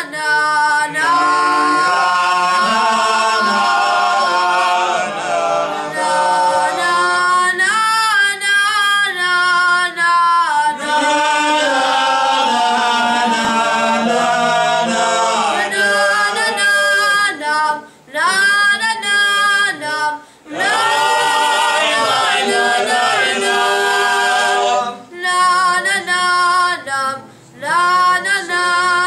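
Cantor chanting Selichos prayers unaccompanied, in a long, ornamented melody with held notes and short breaks between phrases.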